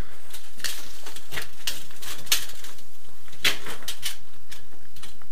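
Handling sounds of a steel tape measure being extended and held against a wall-mounted gas boiler: a string of irregular short clicks and scrapes.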